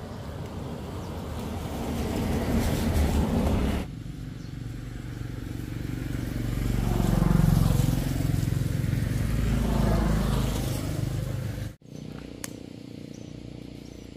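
Road traffic, a car and motorbikes, driving past with their engine and tyre noise swelling as each comes close. The sound breaks off sharply about four seconds in and again near twelve seconds.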